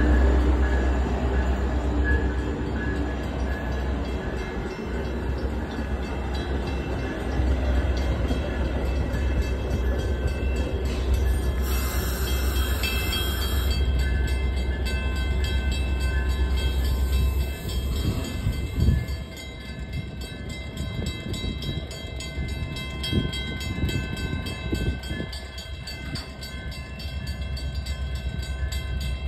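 Metra diesel-hauled commuter train pulling into the station: a steady low locomotive rumble and bilevel cars rolling along the platform as it slows, with a burst of air hiss about twelve seconds in. The rumble drops away after about eighteen seconds, leaving quieter creaks and knocks from the stopped cars.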